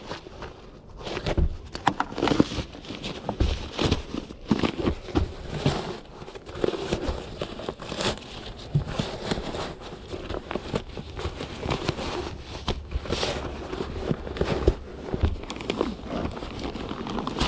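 Nylon stuff sacks and bedding fabric rustling and crinkling as gloved hands handle and pack them, in irregular bursts with scrapes across the mattress.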